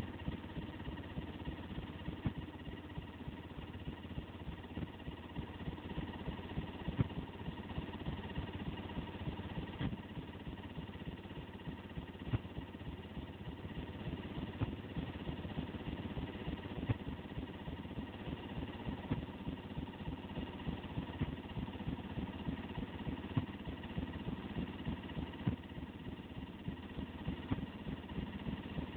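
Loud dance music played over loudspeakers, badly distorted in the recording, with a steady beat under a dense buzzing wash.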